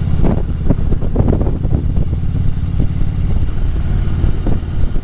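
Harley-Davidson V-twin motorcycle engine running steadily at road speed, heard from the rider's own bike, with a few louder surges of noise in the first two seconds.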